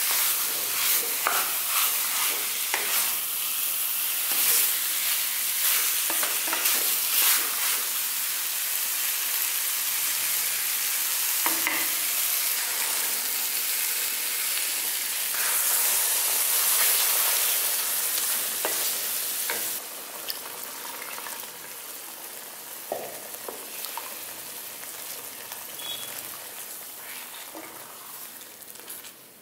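Masala-coated chicken pieces sizzling as they fry in a pan, stirred with a spatula that scrapes and knocks now and then. About two-thirds of the way through, the sizzle drops to a softer, quieter bubble once the coconut-onion paste and water are in.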